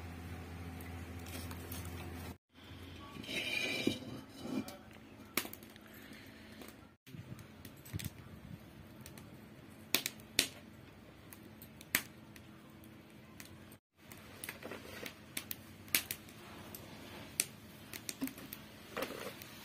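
Steady low sound of the wood fire in a clay chulha for the first couple of seconds, then scattered sharp clicks and taps with a brief rustling hiss about four seconds in, from handling a steel plate of raw fish pieces as turmeric and salt are sprinkled on.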